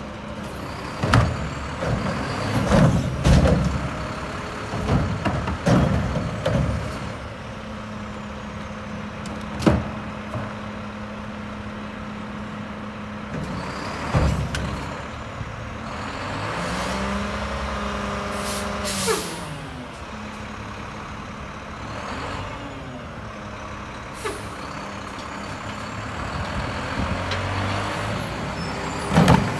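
Front-loader garbage truck with a Curotto-Can cart arm emptying a residential trash cart. The truck's engine and hydraulics run under a series of sharp clanks and thuds in the first several seconds as the cart is dumped. A steady hum follows, then the engine pitch rises and falls around the middle as the truck moves off, with bursts of air-brake hiss.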